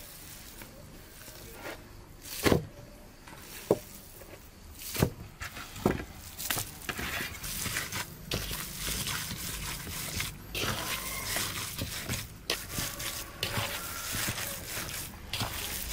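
Handfuls of raw minced lamb going into a large metal bowl: four knocks with a short ring of the metal in the first half, then hands kneading the mince against the bowl, a continuous busy patter of small wet squeezes and slaps.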